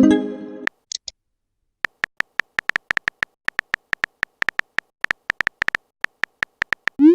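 Electronic typing blips: many very short beeps at one high pitch, coming in irregular runs as chat text is typed out. The runs open with a brief fading chime-like tone and end on a quick rising pop.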